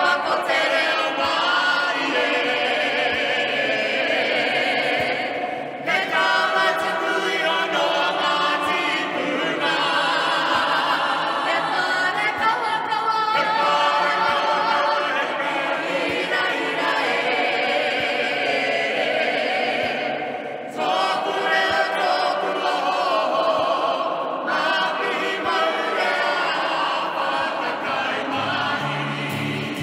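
Mixed choir of men and women singing a cappella in te reo Māori, phrase after phrase with short breaks between, the voices echoing in a large bare concrete silo.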